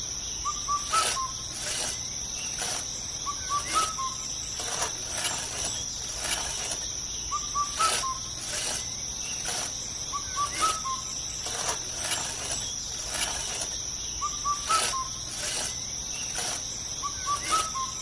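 Nature ambience: a steady high insect trill, with short bird chirps every few seconds and scattered clicks.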